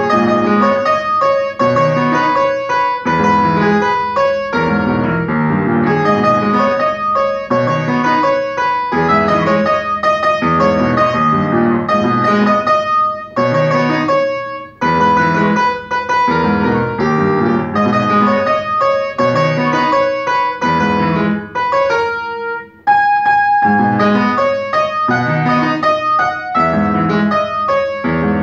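Upright acoustic piano played solo: melody over rhythmic chords in steady time, with two brief breaks between phrases.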